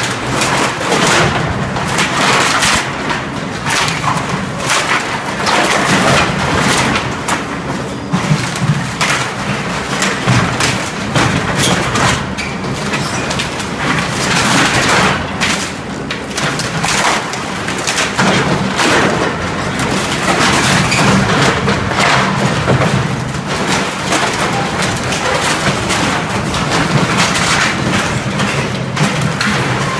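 Cat 226B skid steer loader's diesel engine running steadily under load while its grapple bucket crushes wooden racking, with repeated irregular crashes, thumps and cracking of breaking lumber.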